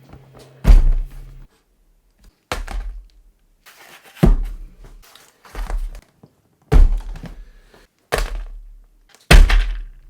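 A series of seven heavy thumps, roughly one every second and a half, each with a short fading tail.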